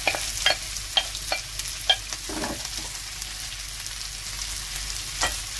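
Shredded cabbage and carrot sizzling in hot oil in a kadai as a wooden spatula stirs them, knocking against the pan several times in the first two seconds and once more near the end.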